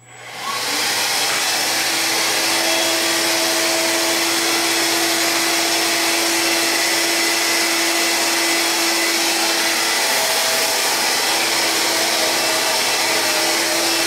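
Cordless stick vacuum cleaner switched on, its motor spinning up within about the first second and then running steadily with a constant hum as it is pushed back and forth over carpet.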